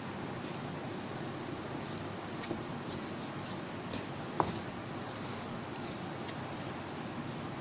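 Wooden spatula stirring and scraping through cooked minced meat in a non-stick frying pan, over a steady hiss, with one sharp knock of the spatula on the pan about four and a half seconds in. Gram flour is being mixed into the mince.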